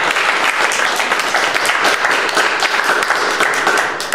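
Audience applauding, many hands clapping together at a steady level.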